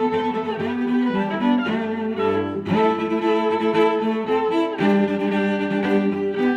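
Background music: bowed string instruments playing sustained notes.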